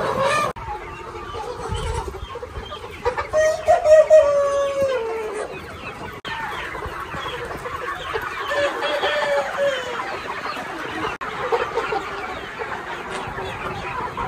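A flock of chickens clucking, with a rooster crowing once about three seconds in, a long call that falls in pitch at the end. A second, shorter crow comes later.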